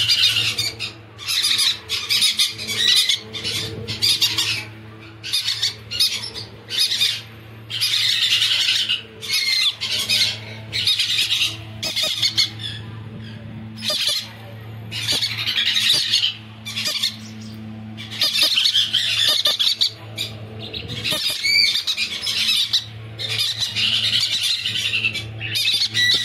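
Yellow-sided conures (a colour mutation of the green-cheeked conure) squawking, with loud, harsh calls repeated every second or so.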